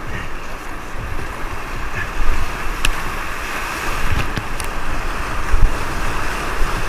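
Whitewater rapids rushing around a kayak, with water and wind buffeting the camera's microphone. A few sudden thumps and sharp clicks break through.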